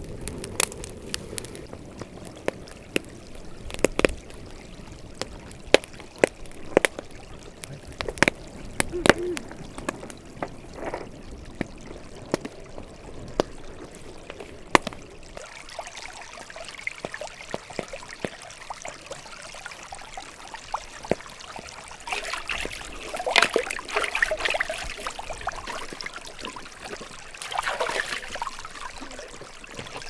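A fire of dry twigs and grass crackling and popping as a plucked chicken is singed over the flames. About halfway through the crackling gives way to a small stream trickling, with splashing near the end as the chicken is rinsed in the water.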